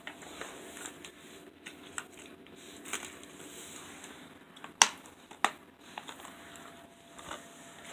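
Plastic Blu-ray case and discs being handled: scattered light clicks and rustling, with a sharper snap about five seconds in and another just after.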